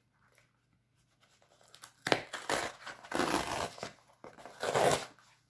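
Cardboard mailer being torn open by hand along its tear-open flap. The first two seconds are quiet; then come several rough tearing strokes over about three seconds, with the loudest rips at the start and near the end.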